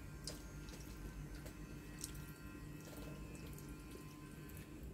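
Chopsticks stirring spaghetti in a ceramic bowl, with a few light clicks of the sticks against the bowl over a faint steady low hum.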